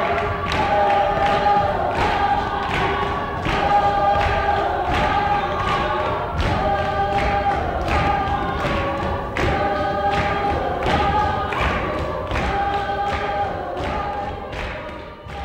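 A group of voices singing together in long held notes that shift in pitch, over a steady beat of hand claps.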